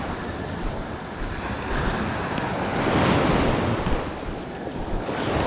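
Small surf breaking and washing up a sand beach, the wash rising and falling and loudest about three seconds in, with wind buffeting the microphone.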